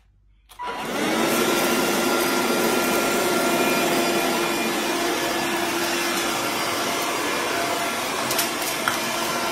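Handheld vacuum cleaner switched on about half a second in, its motor whine rising quickly to speed, then running steadily.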